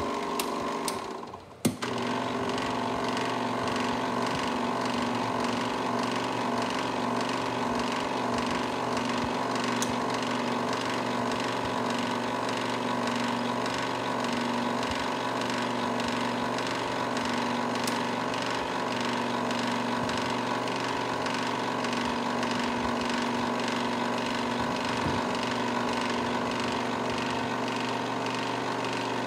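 Bell & Howell Filmosound 1585 16mm film projector running, its motor and film mechanism making a steady whir over a low hum. About a second in the sound drops out briefly as the control knob is turned, then comes back with a click and runs on evenly.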